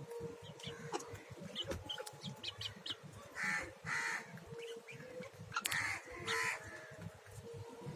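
Crows cawing, the harsh calls coming in pairs about half a second apart, twice, with short high chirps in between.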